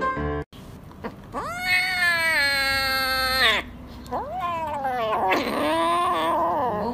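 A young kitten crying with two long meows: the first rises and is then held steady for about two seconds, the second wavers in pitch. A snippet of piano music cuts off in the first half second.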